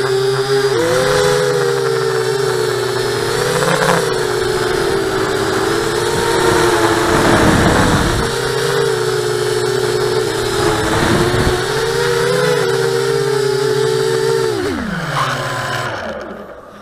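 Mini quadcopter's four small brushless motors (ZMR1804 2400kv) and 5-inch three-blade props whining, heard from the onboard camera, the pitch rising and falling with the throttle. Near the end the whine glides steeply down and dies away as the motors spin down.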